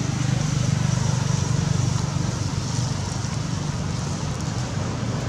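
A motor engine running steadily: a low, even rumble with a faint hiss above it.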